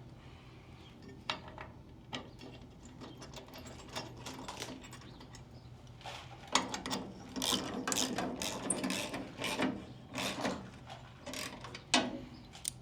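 Hand tools and metal hardware clicking and clanking during work on a firewood conveyor's chain tensioner. The clicks are sparse at first and come thick and fast in the second half.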